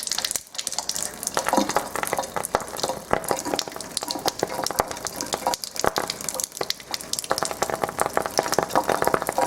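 Rapid, irregular crackling and popping from a lighter flame held to a thin stream of pH 9.5 water from a Kangen water ionizer, over the hiss of the running water. The demonstrator attributes the pops to hydrogen dissolved in the ionized water.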